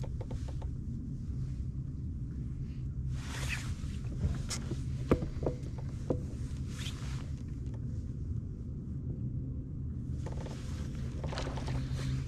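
Steady low rumble of wind and water noise around a fishing kayak, with a few sharp knocks in the middle and three short hissing swishes.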